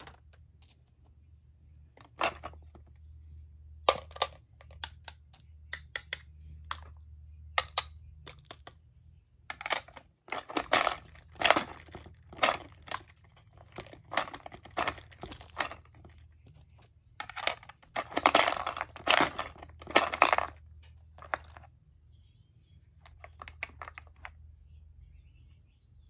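Clicking and clattering of a toy Dubble Bubble gumball machine as a quarter is put in, the crank is turned and gumballs drop out. The clicks come scattered, with two spells of dense, louder rattling, one about ten seconds in and one about seventeen seconds in.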